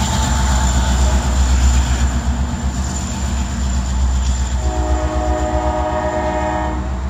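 Low rumble of a receding diesel freight train. About four and a half seconds in, a locomotive air horn sounds one steady blast of about two seconds.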